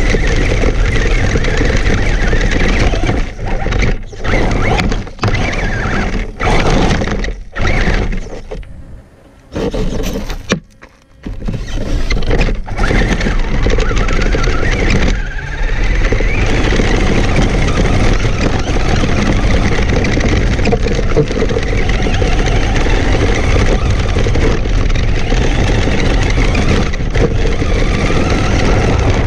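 Traxxas Stampede RC monster truck driving over gravel, heard from a camera on the truck itself: a loud, dense rush of drive noise and tyres on loose stones. A few seconds in it cuts in and out several times and drops almost to quiet for a couple of seconds near the middle, then runs steadily.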